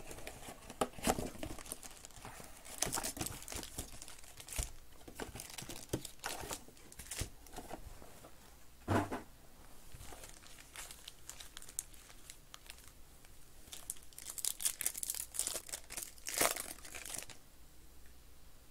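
Trading-card packaging being handled: a Panini Select baseball card box and its pack wrappers crinkling and crackling in the hands, with louder bursts of crinkling and tearing, the longest near the end as a pack is ripped open.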